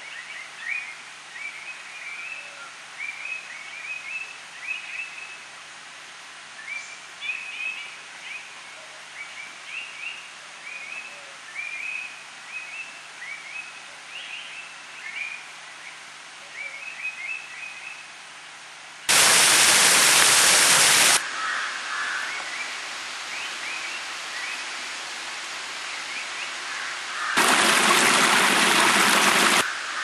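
Birds chattering in quick runs of short, high chirping notes over a steady hiss. Past the middle and again near the end come two loud bursts of rushing noise, each about two seconds long, that cut in and out abruptly.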